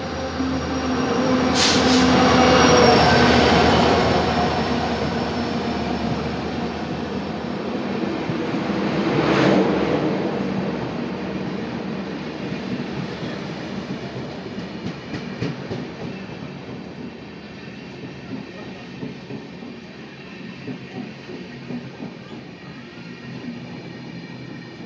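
Train running on the rails, loudest in the first few seconds and again near ten seconds, then fading, with wheels clicking over rail joints in the later part.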